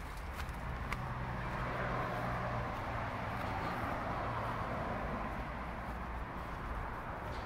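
Distant engine noise: a steady low hum with a hiss over it, growing slightly louder over the first couple of seconds and then holding.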